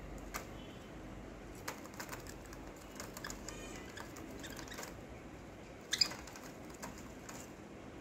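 Budgerigars moving about a wire cage: scattered light clicks and taps, the loudest about six seconds in, with a brief run of rapid ticking partway through.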